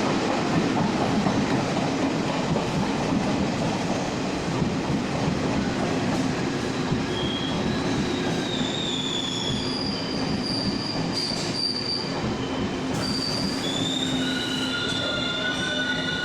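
Taiwan Railway train rolling through the station with a steady rumble. High squealing tones from the wheels set in about halfway, and near the end several sound at once.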